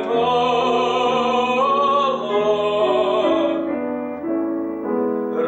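Operatic-style voice singing a Russian romance, holding the last word of a line on a long note that ends about three and a half seconds in, with piano accompaniment carrying on beneath and after it.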